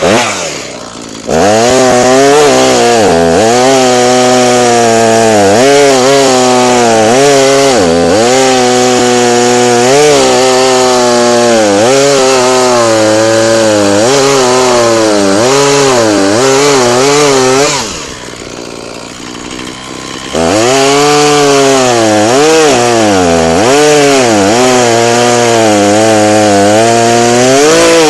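Echo CS490 two-stroke chainsaw bucking firewood logs at full throttle, its pitch sagging and recovering every couple of seconds as the chain bites into the wood. It drops to idle briefly just after the start and again about 18 seconds in, then throttles back up and cuts on.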